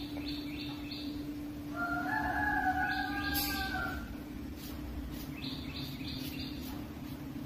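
A rooster crowing once, a drawn-out call of over a second starting about two seconds in. Short chirps repeat quickly near the start and again later, over a steady low hum.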